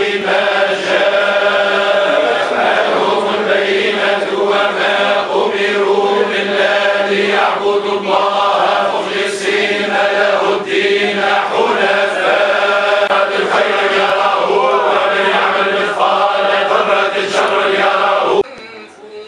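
A group of men chanting a religious chant together in unison, with long held notes; the chant cuts off suddenly near the end.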